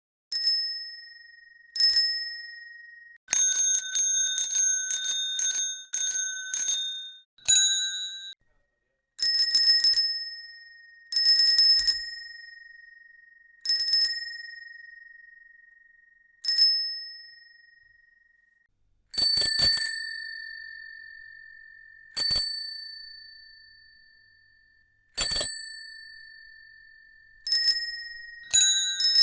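Bicycle bell rung over and over: sometimes a single ding left to ring out and fade, sometimes a quick run of several dings in a row. More than one bell tone is heard, a higher ding and a lower one.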